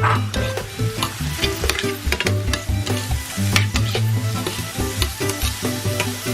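Onions and Thai chilies sizzling in hot oil in a pan, stirred with a utensil that clicks and scrapes against the pan, with light background music.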